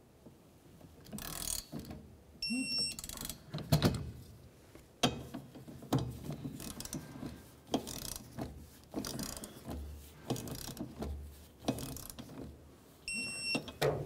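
Digital torque wrench ratcheting wiper arm mounting nuts tight, with irregular clicks and knocks. A short high electronic beep comes from the wrench about two and a half seconds in and again near the end, each time a nut reaches the set torque of 17 foot-pounds.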